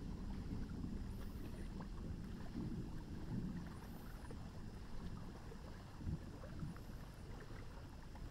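Night-time thunderstorm ambience over a river: a low, uneven rumble with small scattered clicks, and a faint high chirp repeating about every three seconds.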